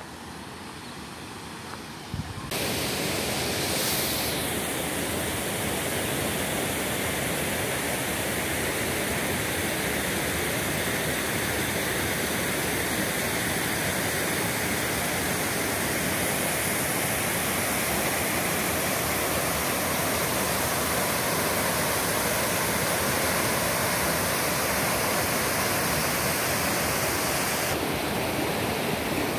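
Canyon stream rushing over low stepped weirs and between boulders: a steady rush of water that comes in louder about two seconds in.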